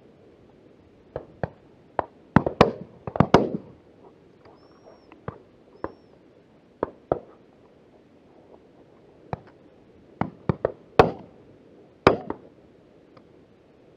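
Shotgun shots from the guns at a driven pheasant and partridge shoot: about eighteen reports, some distant and some close, each with a short echo. They come in a quick cluster early on, then spaced out, and the two loudest come near the end.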